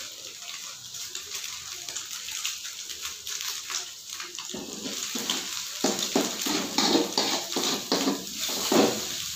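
Scrambled egg, garlic and spring onion frying in a steel wok with a soft crackling sizzle. About halfway through, a metal spoon starts stirring and scraping against the wok in repeated strokes.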